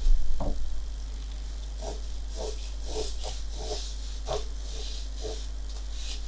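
Pencil scratching across drawing paper in a run of short strokes, roughly two a second, with a single knock about half a second in.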